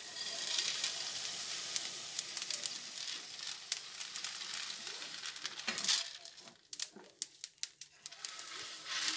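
Dark-roasting coffee beans sizzling and hissing in a hot aluminium pan as they are stirred with a spoon, with scattered clicks of the spoon and beans against the pan. The hiss drops away about two-thirds of the way through, leaving only clicks, and comes back at the very end.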